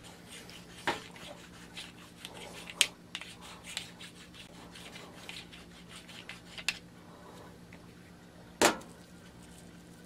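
Small hand tools clicking and scraping against a laptop hard drive's metal mounting bracket as it is worked back into shape, in scattered light ticks and rubs. A louder sharp knock comes near the end.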